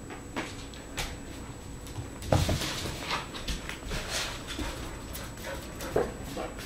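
Goldendoodle puppies playing: a few short whimpers and yips among scuffles and knocks on a wooden floor. The loudest is about two and a half seconds in.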